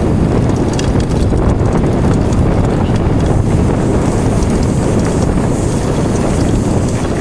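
Mountain bike riding fast down a rough trail: wind buffeting the microphone over a steady rumble of tyres on the ground, with many small clicks and rattles from the bike.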